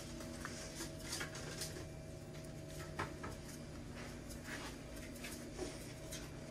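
A few light clicks and taps from a metal seasoning shaker can shaken over bento rice, over a steady low room hum.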